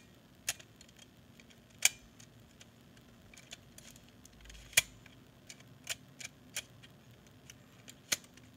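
Scattered sharp clicks and knocks of a 3D-printed plastic part being slid into its slot and worked by hand, about eight in all, the loudest about five seconds in.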